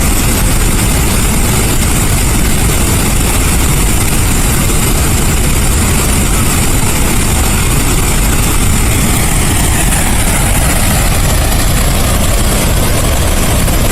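Flood-release outflow from Summersville Dam: a huge volume of water rushing out, a loud, steady roar with a deep rumble under it.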